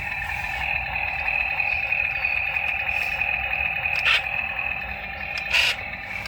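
Small electric motors of a toy RC excavator running with a steady whine, with two short clicks about four and five and a half seconds in.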